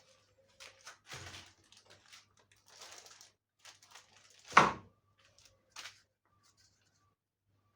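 Handling noises of work on a tumble dryer: scattered scrapes, rustles and clicks, with one sharp knock about four and a half seconds in.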